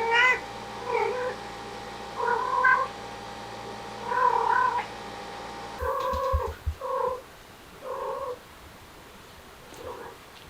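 A cat meowing repeatedly: about eight short calls, spaced a second or two apart, the first one the loudest.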